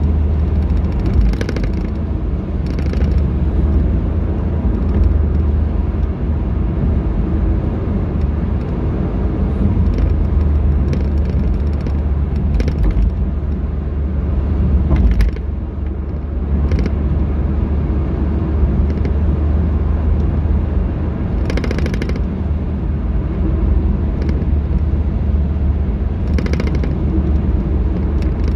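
Car driving on a city road, heard from inside the cabin: a steady low rumble of engine and tyres, with a few brief clicks now and then.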